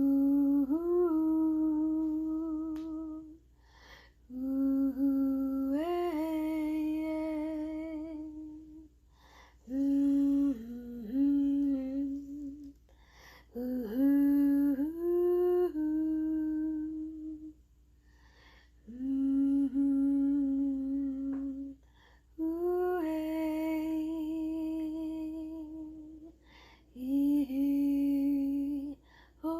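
A single voice humming a slow, wordless channeled melody in long held notes, with about seven phrases. Each phrase starts with a slight upward slide, and short breaths separate them.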